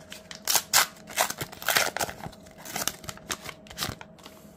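Trading-card pack wrapper being torn open and crinkled in the hands: a quick, irregular series of crackles and rips that stops just before the end.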